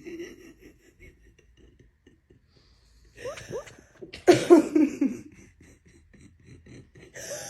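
Dog snoring in its sleep: a short squeaky rising breath about three seconds in, then a loud wheezy snore broken into a run of falling squeaks just after four seconds, with fainter breaths before and near the end.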